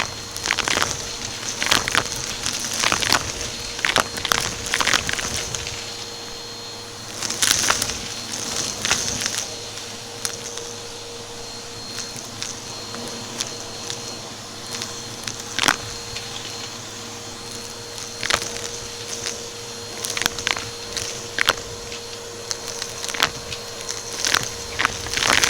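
Vacuum cleaner running with a steady motor whine, over irregular sharp crackles and clicks of crunchy debris being sucked up through the brushroll.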